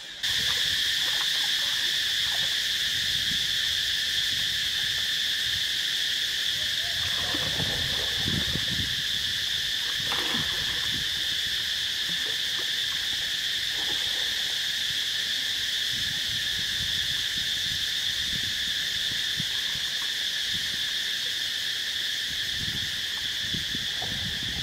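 A steady, high-pitched chorus of insects droning without a break, with a lower second band beneath it. Water splashes and sloshes now and then underneath, most around a third of the way in.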